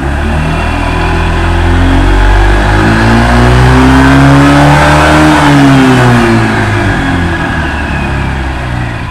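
Honda ADV 150 scooter's single-cylinder engine revved up and back down once, its pitch climbing for about four seconds and then falling. The rev runs the CVT to show its noise, which the mechanic puts down to the CVT cover bearing, whose grease only lubricates fully once warm.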